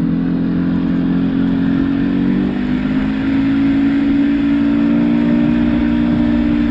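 Evinrude outboard motor running at speed with a steady drone; about two and a half seconds in it dips briefly, then holds at a slightly higher pitch.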